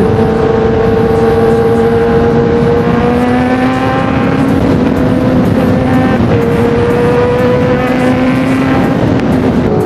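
Kawasaki ZX-10R's inline-four engine running under load at cruising speed, its pitch slowly rising, dipping with a gear change about six seconds in and rising again, over steady wind rush on the helmet microphone.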